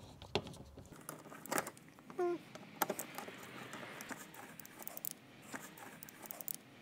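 Faint, irregular clicks and scrapes of a T20 Torx driver turning out screws from the plastic wheel-well liner and bumper edge, with one brief squeak about two seconds in.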